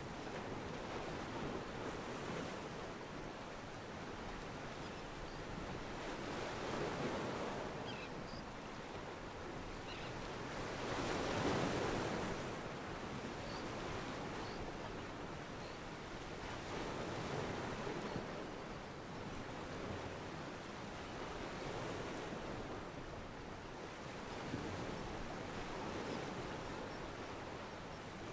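Ocean waves washing against a pier, a sound-effects library track: a steady wash of water that swells and eases every four to six seconds, the biggest swell a little before halfway.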